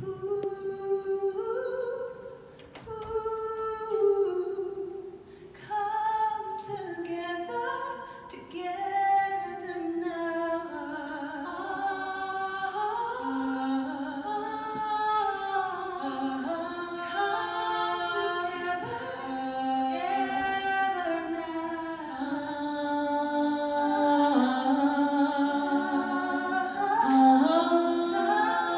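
Several voices singing together in harmony, largely without instruments, beginning suddenly and growing fuller as more parts join in.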